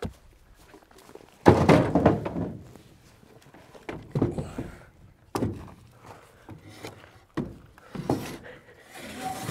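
Irregular thunks and knocks of tools and a hard plastic case being packed up and handled, about six separate hits, the loudest about a second and a half in.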